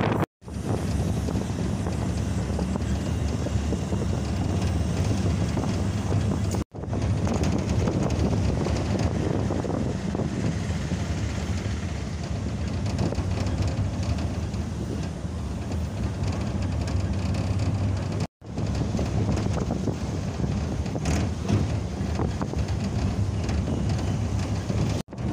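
Steady low road and wind rumble from a Ford Ranger pickup on the move, cut off to dead silence for a split moment four times.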